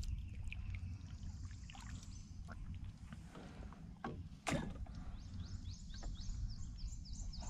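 Handling sounds in a small kayak as a fish is landed: a low rumble of movement, with a single sharp knock against the hull about four and a half seconds in. Near the end a bird repeats a quick high chirp.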